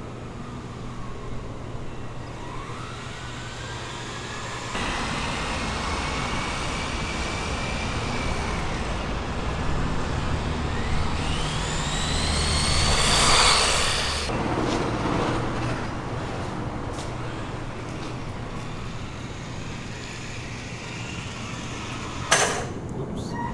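Radio-controlled car driving, heard through a tiny onboard FPV camera microphone: the motor whines and rises in pitch several times as the car speeds up, over a constant rush of wind and road noise. The run is loudest about thirteen seconds in, and a single sharp knock comes near the end.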